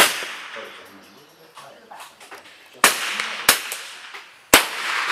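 .22 LR smallbore rifle shots from several shooters: four sharp cracks, one right at the start and then three close together near the end, each trailing off in a long echo.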